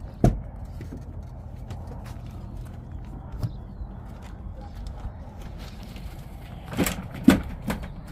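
Metal folding pet stairs being opened out and locked in place: several sharp knocks and clicks of the metal frame and its locking pin, one just after the start, one midway and a cluster of three near the end, over a steady low rumble.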